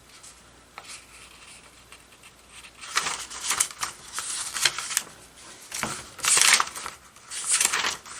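Paper pages of an instruction manual rustling as they are handled and turned, in a string of short rustles starting about three seconds in.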